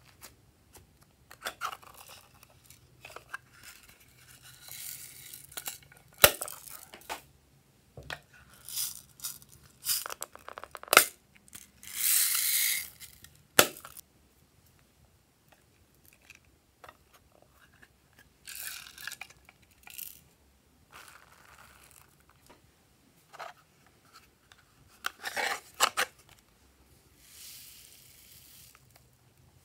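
Small decorations (sequins, plastic beads and sprinkles) poured out of small plastic bags onto slime in a glass dish, with crinkling of the bags and sharp clicks of pieces striking the glass. The longest and loudest pour comes about twelve seconds in, and a fainter pour of sprinkles comes near the end.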